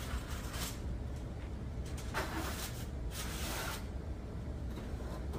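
Faint rustling and scraping as a foil-covered baking pan of ribs is handled and slid onto an oven rack, in several short bursts over a steady low hum.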